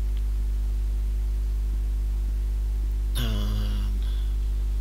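Steady low electrical mains hum with a stack of buzzing overtones, picked up on the recording. A short low voiced sound comes about three seconds in.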